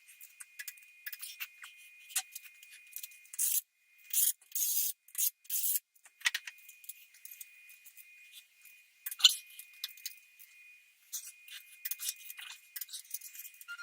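Small metal parts and hand tools being handled: scattered clinks, scrapes and rubbing, with a run of scraping about four to six seconds in and a sharp click a little past halfway. A faint steady high tone sits underneath.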